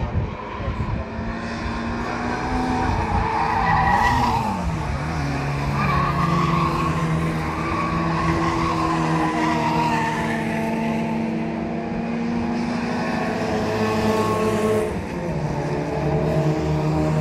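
Several Mini 1000-class race cars running hard through a corner one after another, their roughly 1000cc four-cylinder engines at high revs. About four seconds in, one engine note falls, then the engines hold a high, steady drone.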